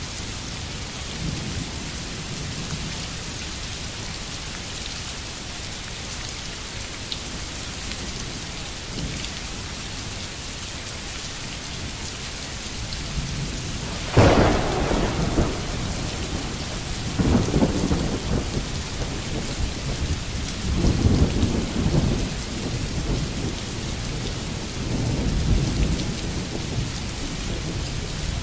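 Steady rain falling, with a sudden sharp thunderclap about halfway through, followed by several rolling rumbles of thunder.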